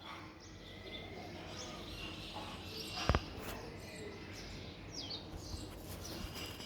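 Small birds chirping and twittering, short high calls scattered throughout, with one sharp knock a little after three seconds in.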